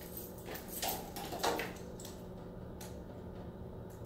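A few soft clicks and small knocks, bunched in the first second and a half with a couple more later, over a steady low hum in a quiet room.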